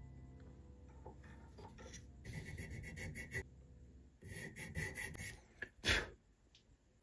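Quick back-and-forth strokes of a small hand file rasping the edge of a small round part, in two bursts of about a second each, then a single sharp knock near the end.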